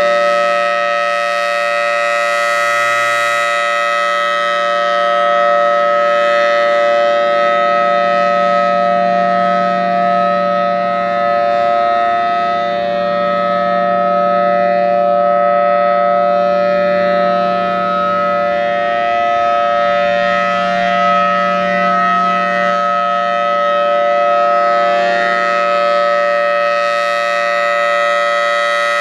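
Federal Signal Thunderbolt 1003 outdoor warning siren sounding its steady Alert tone, a held, unwavering pitch whose loudness swells and fades gently.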